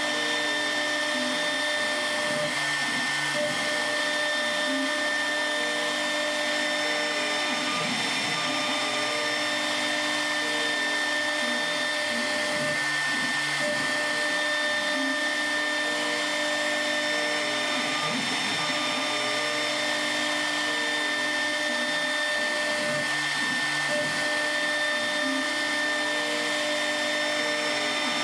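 ShopBot Desktop CNC router's spindle running steadily with a high whine over the rushing of its dust collection while it cuts reeds into a walnut table leg turned in a rotary indexing head. Lower tones step up and down in pitch every second or so as the machine moves.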